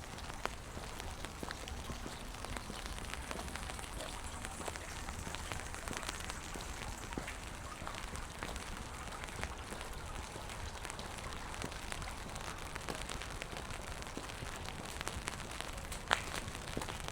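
Rain falling on wet pavement: a steady patter dotted with small drip ticks, with a low rumble underneath. A single sharp click near the end stands out above the rain.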